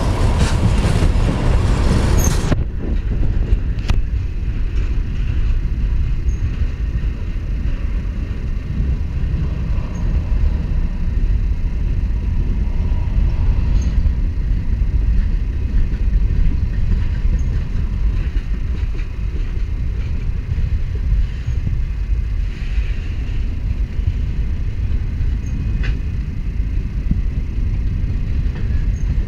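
Freight train cars rolling past close by: a steady low rumble of steel wheels on the rails.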